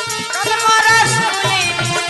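Indian devotional folk music: a harmonium holds steady chords while a melody glides up and down over a regular low drum beat.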